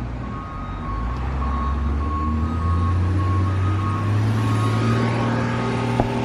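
A vehicle engine running, its note rising and growing louder about two seconds in, under a quick, steady electronic warning beep like a reversing alarm. A single sharp click comes near the end.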